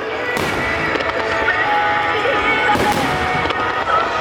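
Starmine fireworks bursting in a rapid barrage, with several sharp bangs, over music played to accompany the display.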